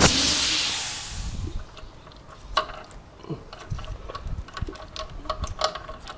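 A loud hiss that fades away over about a second and a half, followed by scattered light metallic clicks and clinks of hand tools being worked.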